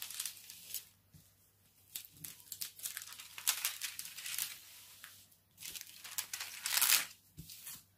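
Clear plastic cover film on a diamond painting canvas crinkling in irregular rustles as it is handled and pressed back down onto the sticky canvas, loudest about seven seconds in.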